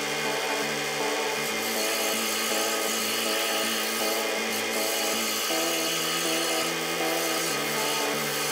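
Scroll saw running, its fine reciprocating blade cutting through a small piece of wood in a steady, even sawing sound.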